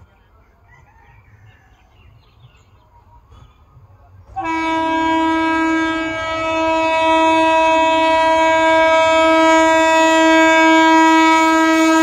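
Indian Railways EMU local train's horn sounding one long, steady blast as the train approaches. The blast starts abruptly about four seconds in, after a few seconds of faint background.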